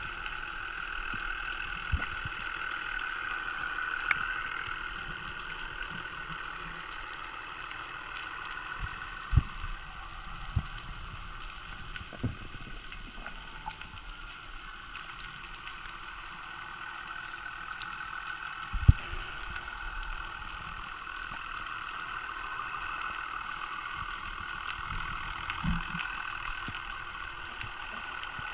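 Muffled underwater ambience picked up by a camera in a waterproof housing: a steady hiss-like drone, with several dull knocks scattered through it, the loudest about two-thirds of the way in.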